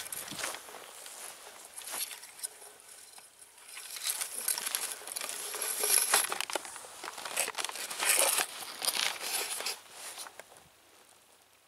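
Tall meadow grass rustling and crackling as it is brushed through, in irregular bursts that are loudest in the middle and die away near the end.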